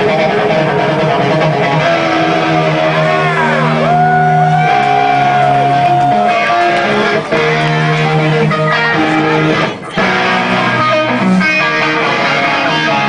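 Electric guitar playing a solo live through an amplifier: fast runs, a long held note, and notes that bend up and back down in pitch. The sound drops out briefly just before ten seconds in.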